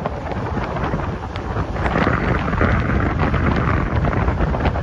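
Wind buffeting the microphone of a phone held out of the open door of a moving express train. Under it runs the train's steady rumble, with short clicks from the wheels on the rails.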